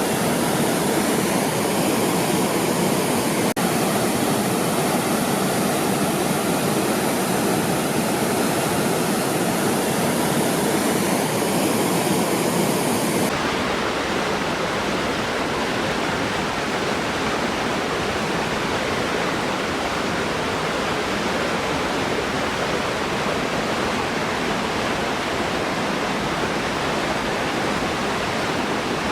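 Waterfall: a steady, loud rush of falling water. About halfway through the sound turns duller, losing its high hiss.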